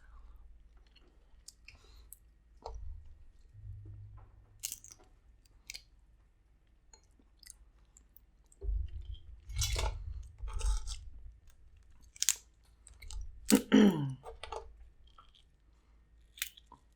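Close-miked chewing and crunching of seafood-boil food, with scattered sharp clicks and cracks. It is louder about nine to eleven seconds in, and there is another short loud sound near fourteen seconds in.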